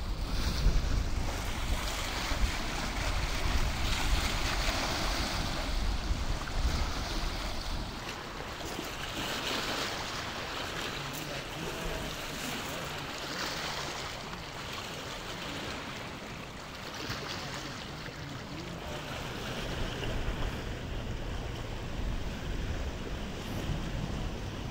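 Lake waves washing against a stony shore, swelling and falling back every few seconds, with a low rumble of wind on the microphone.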